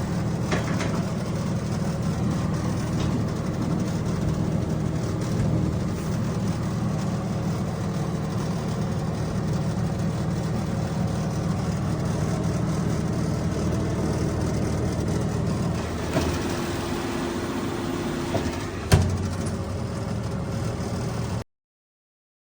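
HYSapientia 24 L air fryer oven running on its chip setting: the steady hum of its convection fan. About 16 seconds in the hum changes, and about 19 seconds in there is a single sharp click or knock.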